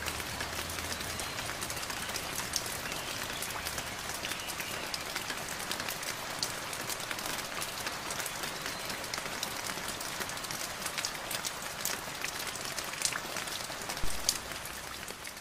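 Steady rain falling, dotted with many sharp ticks of drops hitting surfaces; it starts to fade out near the end.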